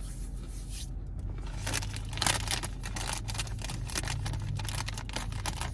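Crunchy Quaker Rice Crisps being chewed close to the mic: a dense run of short crackles that starts about one and a half seconds in.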